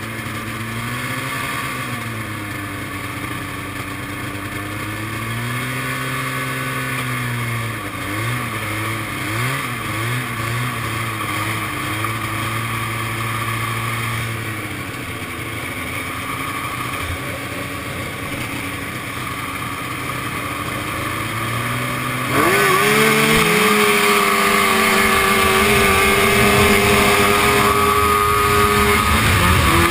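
1974 Rupp Nitro snowmobile's two-stroke engine heard from the rider's seat: idling at the start line with several throttle blips, the pitch rising and falling. About 22 seconds in it goes to full throttle for the race start, much louder, the pitch climbing fast and holding high, then dipping briefly near the end.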